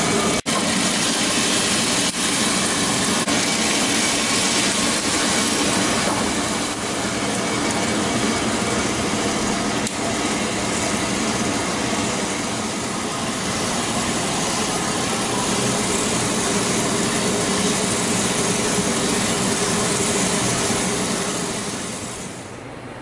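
Freshly roasted coffee beans rattling and tumbling in a coffee roaster's cooling tray as its stirring arms turn them, a steady dense rush of sound that drops away near the end.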